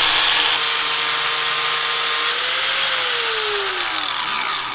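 Angle grinder with a cut-off wheel cutting through a steel tube with a loud, steady scream. Near the end its pitch falls away as the grinder winds down.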